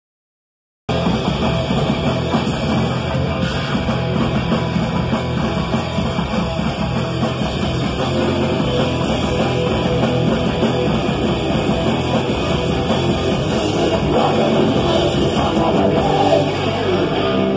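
A punk-hardcore trio of distorted electric guitar, bass guitar and drums playing loud and dense. It starts abruptly about a second in after silence and thins out near the end.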